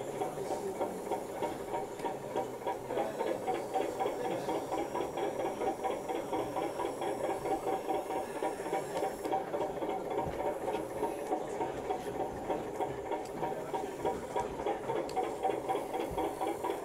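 Small electric motors and gearing of a working model Ruston-Bucyrus 10-RB face shovel, running as it digs and swings, giving a steady hum that pulses rapidly.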